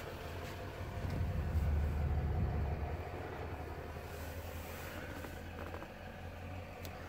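Low vehicle rumble that swells about a second in and eases off after about three seconds.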